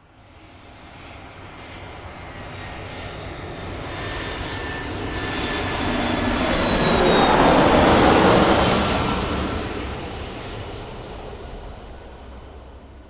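Airplane flying past: the engine noise swells from nothing, is loudest about eight seconds in, then fades away, with a high whine that dips in pitch as it passes.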